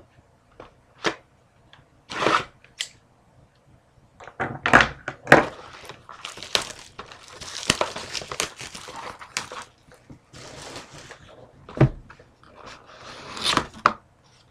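A sealed trading-card box being opened and handled: plastic wrapper crinkling and tearing, with irregular cardboard thunks and taps.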